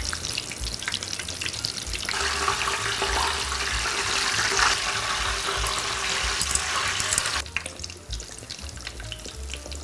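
Hot oil sizzling as panko-breaded mahi mahi fillets deep-fry in a pan. The sizzle swells louder about two seconds in and drops back to a quieter sizzle about seven seconds in.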